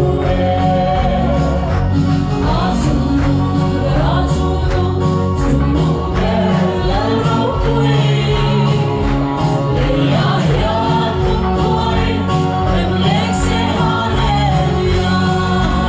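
A gospel song sung by a group of voices over an instrumental accompaniment with a steady beat.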